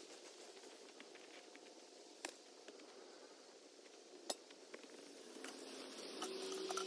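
Footsteps scuffing on loose dirt and rustling as a person walks with a bucket, growing louder near the end. Before that come two sharp knocks about two seconds apart.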